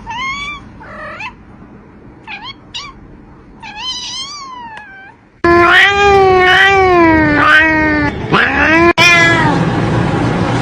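A cat meowing: a few short, soft meows and chirps, then about five seconds in a much louder, long wavering meow, with a short call after it. A sharp click comes near the end.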